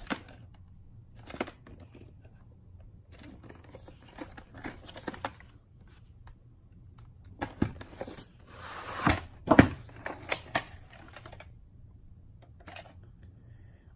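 Handling a VHS tape: scattered light taps and clicks, then about eight and a half seconds in a scraping rustle of the cardboard sleeve as the plastic cassette slides out of it, with a few sharp clicks of the cassette.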